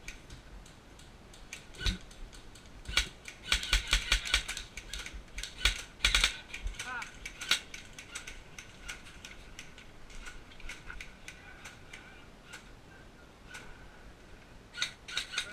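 Sharp mechanical clicks and knocks in quick irregular runs, loudest about three to four and a half seconds in and around six seconds, with a few more near the end.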